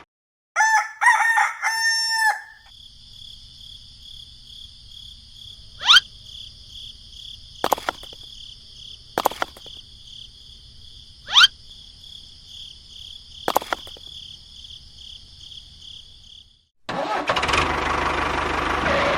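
A rooster crows once just after the start. A steady high whine follows over a low hum, broken by a few sharp clicks and two quick rising chirps. Near the end comes a loud burst of noise.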